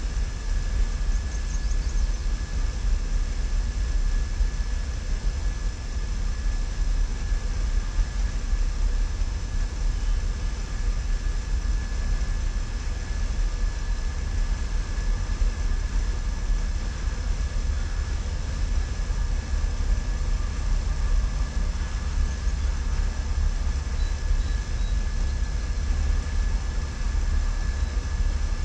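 Steady low rumble, even throughout, with a faint constant high whine above it.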